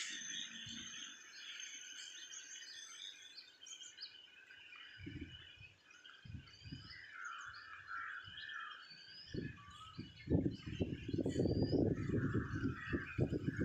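Several birds chirping and calling, with short rising whistles among them. From about nine seconds in, gusty wind buffets the microphone with an uneven low rumble that grows louder toward the end.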